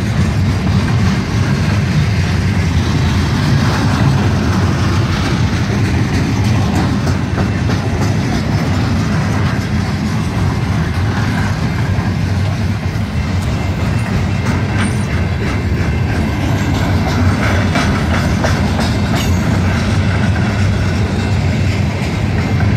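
CN freight train's cars rolling past close by: a steady, loud rumble of steel wheels on the rails, with a few sharp clacks about three-quarters of the way through.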